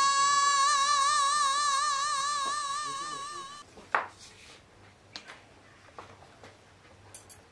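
A long sung note in a high voice, held steady and then wavering in a widening vibrato before fading out about three and a half seconds in. A sharp click follows, then a few faint ticks.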